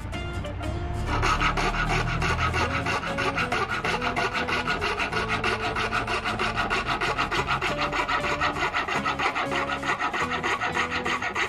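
Fine-bladed hand frame saw rasping through a G10 fibreglass handle scale held in a vise, in quick, even strokes that pick up about a second in.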